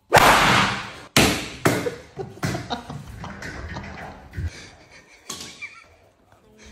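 A water balloon bursts with a loud pop and splash as it is struck with a stick. Two more sharp smacks follow, then a run of smaller knocks and scuffling.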